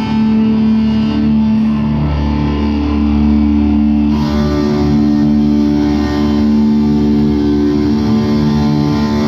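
Live rock band playing loud in an arena: distorted electric guitars hold a sustained chord over bass, with the sound turning brighter about four seconds in.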